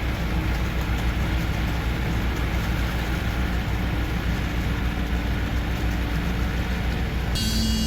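Heavy engine of concrete pouring equipment running steadily with a deep, even drone during a concrete pour. Near the end a higher-pitched ringing sound joins in.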